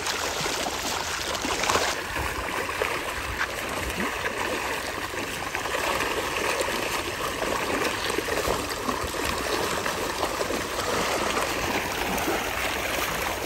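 Steady running water, a continuous trickling flow at even level.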